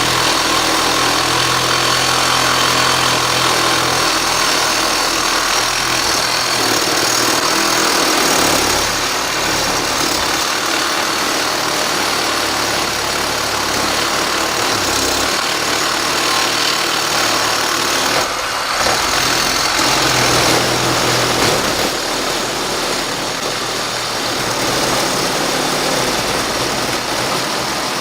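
Makita 12V max CXT cordless reciprocating saw running steadily with its blade cutting slowly through thick, very hard aluminum stock clamped in a vise, with a brief dip about two-thirds of the way through.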